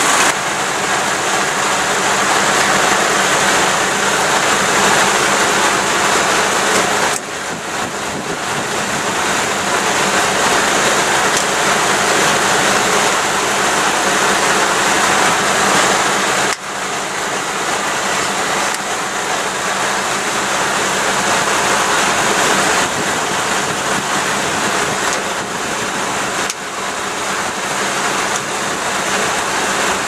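Truck tractor unit idling with a steady rushing hiss over its low hum. The noise dips briefly three times.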